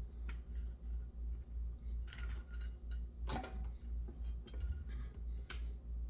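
Small clicks and rustles of hands working on thin headphone wire, over a steady low hum that swells and fades about three times a second.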